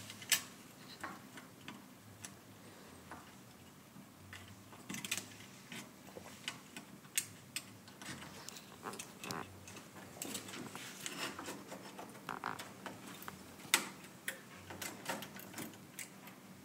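Scattered small clicks and taps of plastic octal valve sockets being pushed and worked into their holes in a circuit board, at irregular intervals, with one sharper click near the end.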